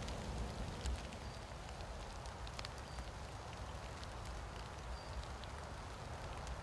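Quiet outdoor ambience: a low, steady rumble of wind with scattered light ticks and a few faint, short high peeps.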